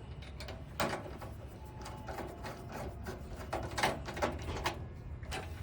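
Irregular clicks, light knocks and scrapes of a screwdriver and metal parts as screws are tightened on a DTF oven's heater lamp fitting, about eight sharp clicks spread over a few seconds over a steady low hum.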